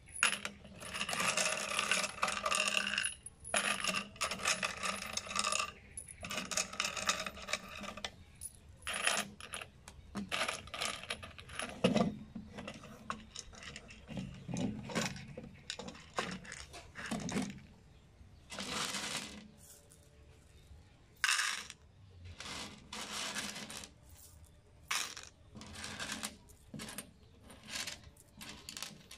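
Small steel screws and bolts dropped by the handful into PVC pipe cups, clinking and rattling against each other and the plastic. A busy jingle for the first few seconds, then scattered clinks and short rattles as more are picked from a pile and added.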